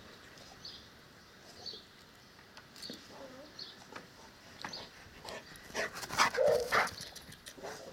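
Cane Corso barking briefly, loudest about six seconds in.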